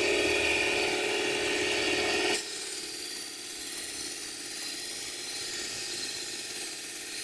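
Mini electric belt grinder sharpening a knife: a steady hum and scraping as the blade is held against the abrasive belt. About two and a half seconds in, the grinding drops away suddenly and the grinder runs on more quietly.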